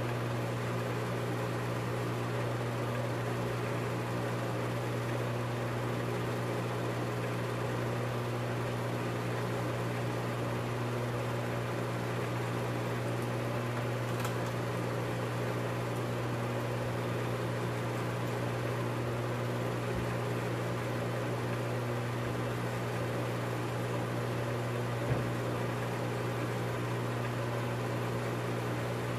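Film projector running: a steady motor and fan hum over hiss, with one faint click near the end.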